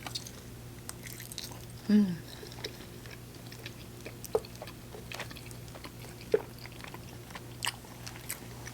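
Close-miked chewing of a fried chicken wing: scattered crisp bites and wet mouth clicks, with a short falling hum from the eater about two seconds in.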